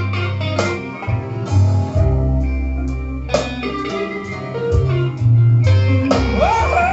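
Blues song playing back from a cassette: an instrumental passage with guitar and bass between sung lines.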